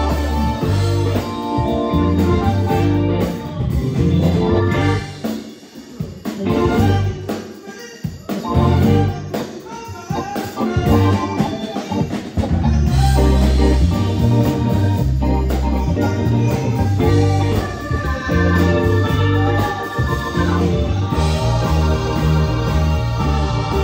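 Live band playing, with drum kit, horns, congas, electric organ-toned keyboard and electric guitar. The music briefly drops back about a quarter of the way in, then returns at full level.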